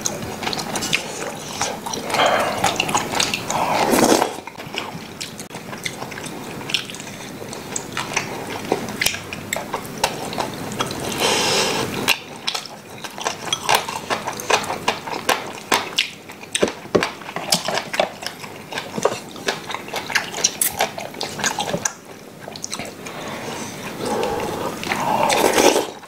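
Close-up eating sounds of two people at a meal: chewing and slurping, with spoons, chopsticks and a ladle clicking against bowls and a stew pot. There are many short sharp clicks, and a few louder slurping stretches near the start, about halfway through and near the end.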